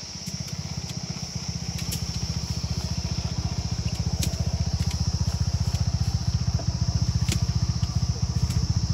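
An engine running with a low, rapid, even thumping beat, growing louder over the first few seconds and then holding steady.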